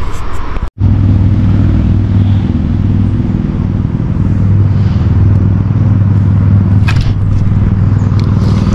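A steady low motor hum, after a brief cut-out just under a second in.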